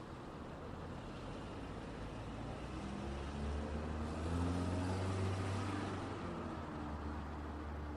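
A road vehicle drives past: its engine hum and tyre noise swell to a peak about halfway through, then fade, over a steady background of traffic.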